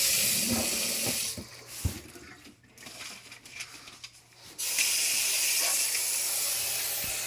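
Kitchen sink tap running hard onto a phone set in the sink rack, water splashing in a stainless steel sink. The rush of water drops away after about a second and a half, with a single knock in the quieter stretch, then comes back strongly about two seconds before the end.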